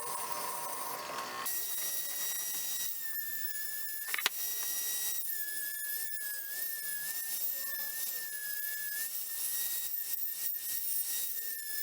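Small high-speed rotary power tool whining at a steady, slightly wavering pitch while cleaning rust off a steel hatchet head, with a sharp click about four seconds in.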